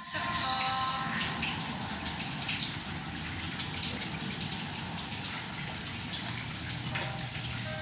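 Rushing, splashing water, louder for about the first second and then steady.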